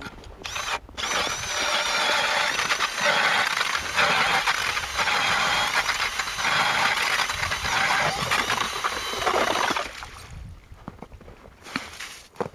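Cordless 18-volt drill driving an ice auger into ice: the motor whines, its pitch wavering under load, over the grinding of the auger blades cutting through, for about nine seconds before it stops. A few knocks follow near the end as the auger is lifted out.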